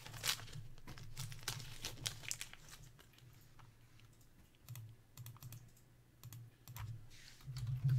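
Quick light clicks and rustling of cardboard baseball cards from a freshly opened 1984 Donruss pack as they are handled and slid on a desk mat. The clicks are busiest in the first few seconds and sparser after that, over a low hum.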